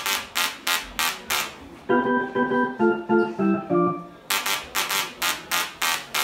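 Musical Tesla coil (DRSSTC) played from a keyboard as a rhythm and bass line. It buzzes in short, sharp hits about three a second, with a run of stepping, organ-like pitched notes between about two and four seconds in.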